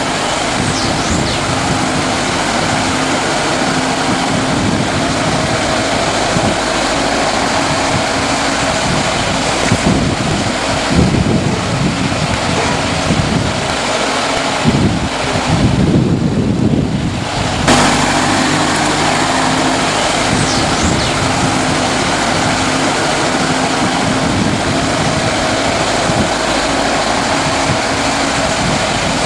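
Forklift engine running steadily, half buried under a loud hiss and gusty wind buffeting on the microphone.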